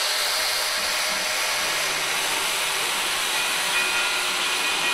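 Wood planer running as a board passes through it: a steady, high-pitched hiss of the cutter head shaving the wood.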